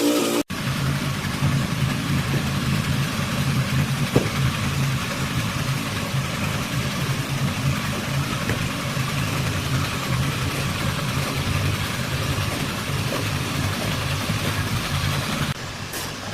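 A motor running steadily with a low, pulsing hum and a hiss over it; the sound changes and thins a little near the end.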